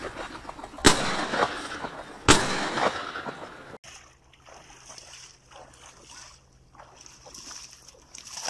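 Two shotgun shots about a second and a half apart, the loudest sounds here, each trailing off in a short echo. After a sudden break, faint sloshing of boots wading through shallow water.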